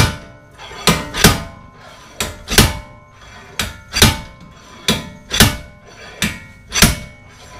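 Slide hammer on a hub puller being struck hard again and again to drive a Honda Civic front hub off its wheel bearing. Each stroke gives a pair of ringing metal clanks, about one stroke every second and a half.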